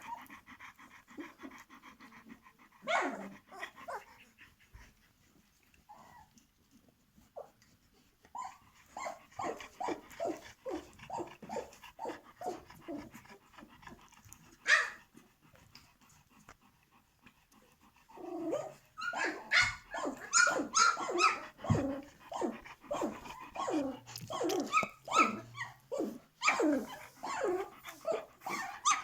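Litter of 17-day-old puppies vocalising: a run of short, evenly spaced sounds, then from about 18 seconds in a busy stream of short squeaks and whimpers.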